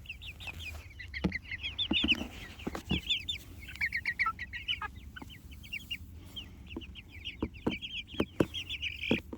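A group of young Jersey Giant chickens chirping, a constant chatter of short, high, quick calls, with a few sharp taps scattered through.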